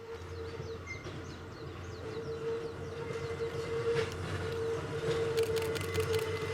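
Hakone Tozan Railway Moha 1 electric car approaching and growing louder, its nose-suspended traction motors giving a steady hum over a low rumble. From about four seconds in, sharp clicks from the wheels on the track join in.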